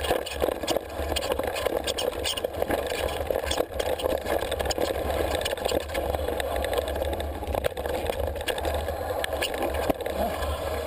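Mountain bike being ridden over a rough trail: steady rolling and rumbling noise, with frequent short rattles and knocks from the bike.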